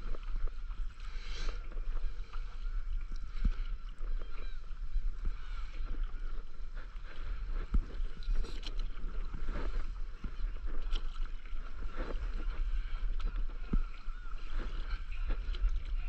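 Stand-up paddle strokes through calm sea water, the blade dipping and pulling with a short splash about every second or so, over a steady low rumble on the camera microphone.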